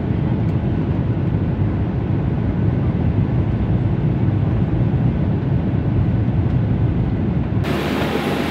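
Airliner cabin noise: a steady, loud low rumble of the engines and airflow. Near the end it cuts off abruptly into a different background hum.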